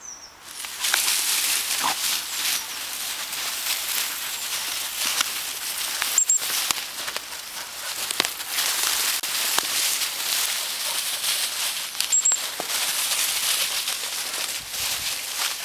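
Footsteps crunching and rustling through dry leaf litter, with many small crackles, starting about a second in and running on steadily.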